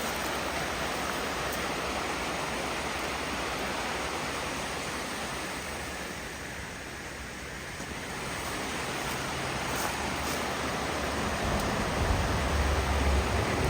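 Steady rushing noise of falling water, easing a little midway; a low rumble comes in near the end.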